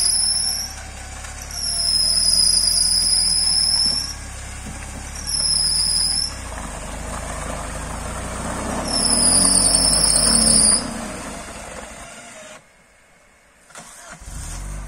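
Vehicle-mounted electric winch pulling in four separate runs, its high whine winding up, holding and winding down each time, over the vehicle's engine idling. The sound nearly drops out about twelve and a half seconds in.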